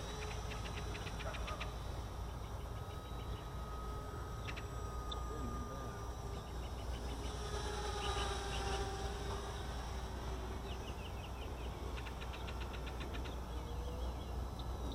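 Small quadcopter's electric motors and propellers buzzing in flight, the pitch wandering and sweeping up and down as the throttle changes. Bursts of rapid short chirps sound over it every few seconds.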